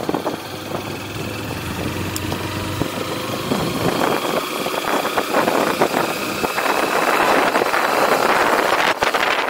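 Motorcycle engine running at low revs through a turn, then pulling away down the street. From about halfway in, wind rush on the microphone builds and grows louder as the bike gathers speed.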